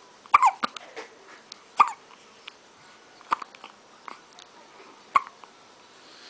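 Babies hiccupping: four sharp little hiccups, each with a tiny squeak, roughly every one and a half seconds, with a few fainter ones between.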